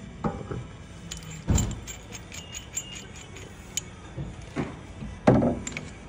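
Metal clinking and knocking from a brake caliper and a caliper piston compression tool being handled. It comes as a few irregular clinks, the loudest about a second and a half in and again near the end.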